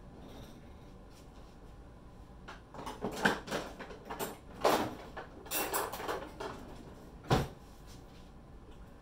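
Kitchen cupboards and drawers being opened and shut, with utensils rattling. It is a run of knocks and clatter starting about three seconds in, ending in one sharp knock about seven seconds in.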